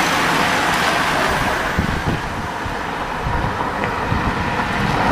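Wind buffeting the microphone, heard as an uneven low rumble over a steady roadside hiss as a bunch of racing cyclists passes; the level dips about two seconds in and rises again near the end.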